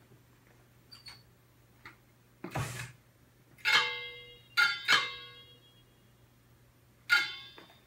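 Four sharp metallic clinks, each ringing briefly, from the hardware of an X-ray exam table as the patient is positioned. A soft thud comes just before them, and a low steady hum runs underneath.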